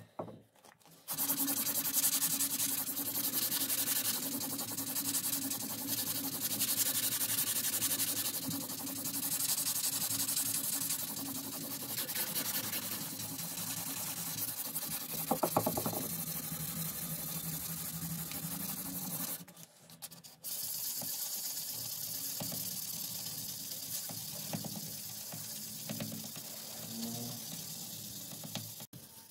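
Abrasive paper, wet with WD-40, rubbed back and forth along the steel blade of a vise-clamped screwdriver: a steady scratchy hiss. It breaks off briefly about twenty seconds in.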